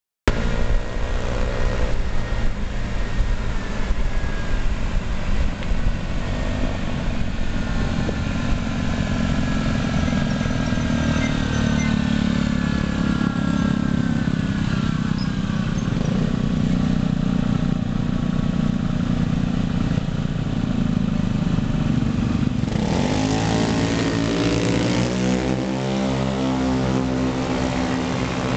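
Small 49cc Honda Ruckus scooters riding in a group, their engines buzzing under heavy wind rumble on the microphone. About three quarters of the way through the rumble eases and several engine hums come through clearly, their pitch shifting as the scooters speed up and slow.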